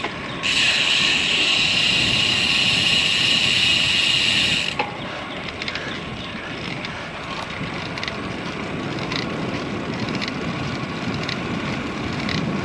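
Wind rushing over the camera microphone and tyre noise from a road bike on the move. For the first few seconds a steady high buzz sits over it, then cuts off suddenly.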